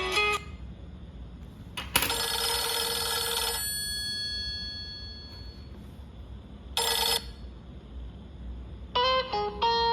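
Nokia C6 phone ringtones. One tune ends just after the start. A ring-like burst comes about two seconds in, its tones ringing on for about a second and a half, and a shorter burst follows near seven seconds. A new plucked-string melody starts near the end.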